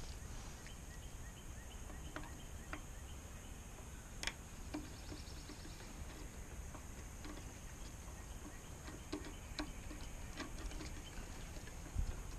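Faint, irregular clicks and light taps over a steady high hiss, with a quick run of small ticks about four and a half seconds in.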